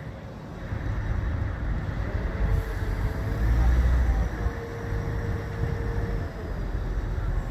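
Diesel engine of a crane running under load while hoisting a steel beam: a low rumble that swells about a second in and is loudest around the middle, with a faint steady whine partway through.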